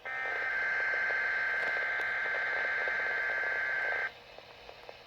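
Weather Radio Canada weekly-test alert signal received off the air: a steady electronic tone over radio static that cuts off suddenly about four seconds in, leaving faint hiss.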